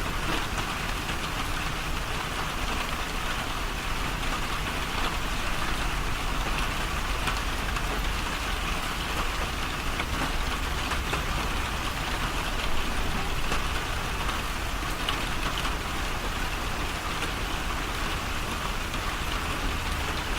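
Steady rain falling, an even continuous hiss with faint scattered drop ticks.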